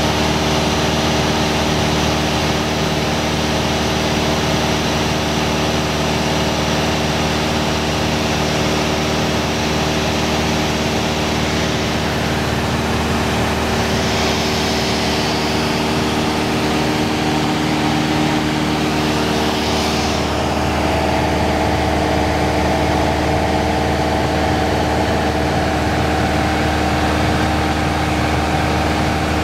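Light aircraft's engine and propeller droning steadily in cruise, heard inside the cabin. Two brief rushes of hiss come about halfway through.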